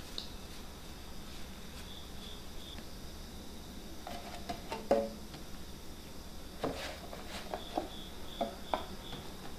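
Soft knocks and taps as balls of bread dough are dropped and pressed into a corrugated metal loaf pan, the loudest bump about five seconds in. Faint high insect chirps repeat in short runs behind it.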